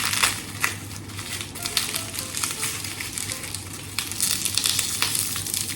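Plastic bubble wrap being handled and pulled away from a packed product, crinkling and rustling, with louder crackles near the start and about four seconds in.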